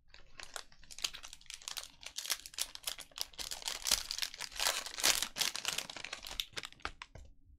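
Plastic trading-card pack wrappers crinkling as a pack is torn open and handled, a dense irregular crackle.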